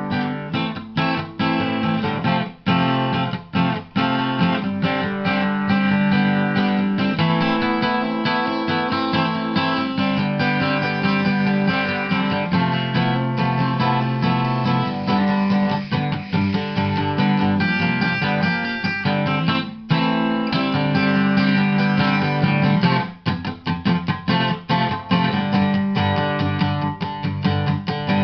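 Background music on acoustic guitar, plucked and strummed.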